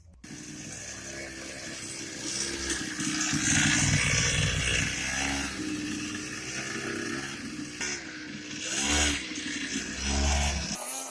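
Small 50cc two-stroke grass-cutter engine powering a children's ATV, running and revving, its pitch rising and falling as the throttle changes.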